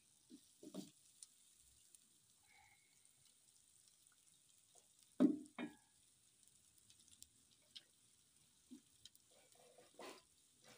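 A wooden spoon stirring and knocking against an aluminium cooking pot, a few scattered knocks with the loudest two close together about halfway through.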